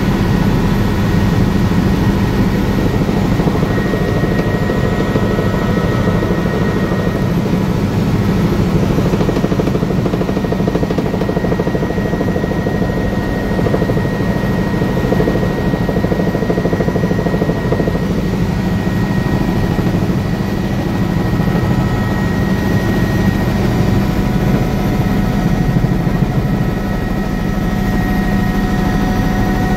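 Helicopter in flight heard from inside the cabin: a loud, steady drone of rotor and engine with constant high-pitched whines.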